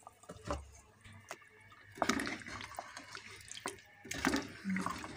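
Wooden spoon stirring trotters and broth in an aluminium pot: liquid sloshing, with scattered knocks and scrapes of the spoon against the pot. The stirring is louder about two seconds in and again about four seconds in.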